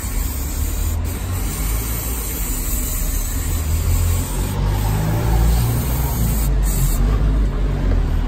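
Aerosol cleaner spraying onto an oily ATV engine to wash away spilled oil, a steady hiss in long bursts with short breaks that thins out near the end, over a steady low rumble.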